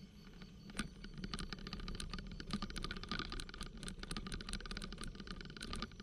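Bicycle on a bumpy dirt track, rattling and clicking rapidly and unevenly from about a second in, over a steady low rumble of the ride.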